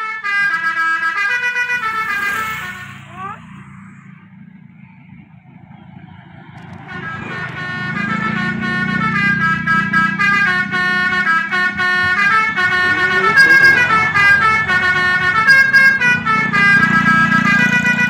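Odong-odong's telolet horn playing a melody of stepped multi-tone notes over a low engine hum. There is a short burst at the start, then a quieter gap. From about seven seconds in, the melody gets louder and plays on without a break as the vehicle approaches.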